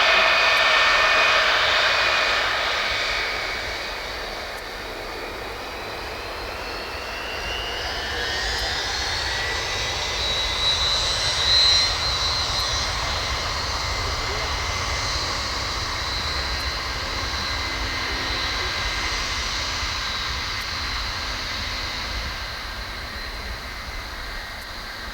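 Boeing 707's Pratt & Whitney JT3D turbofan engines running with a jet whine. The noise first fades, then rises in pitch and level from about seven seconds in, with a brief louder burst near 11 seconds, and settles into a steady whine that slowly dies away.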